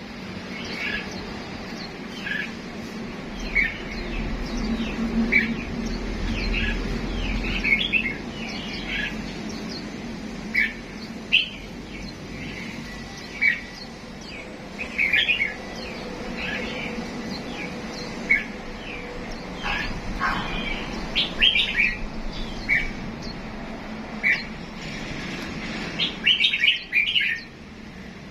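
Cage birds chirping and twittering: short high chirps every second or so, some coming in quick clusters, over a steady low hum.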